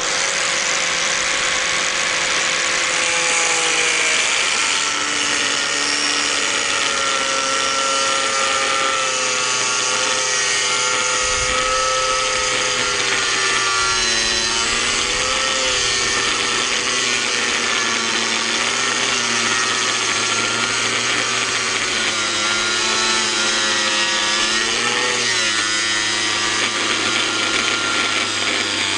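Small Hitachi 125 mm angle grinder with a thin, worn cut-off disc cutting through a thick steel bar held in a vise. The motor runs continuously while the disc grinds into the metal, and its whine sags and wavers in pitch as the load on the disc changes.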